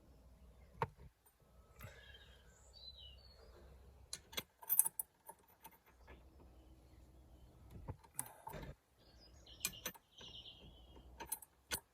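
Scattered metallic clinks and clicks of a small puller being fitted and worked on a seized car wiper arm, loudest about five and eight seconds in. A bird chirps briefly in the background twice.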